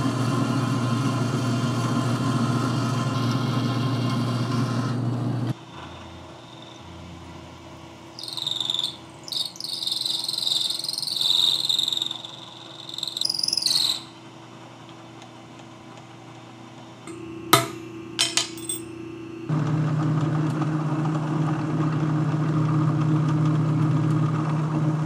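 Metalworking machine tool running with a steady hum; the sound cuts in and out abruptly at several points. In a quieter middle stretch a high-pitched squeal comes and goes, and a few sharp clicks follow before the hum returns.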